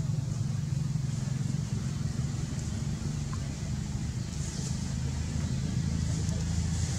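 Low steady rumble of a running engine, its hum dropping lower about two thirds of the way through.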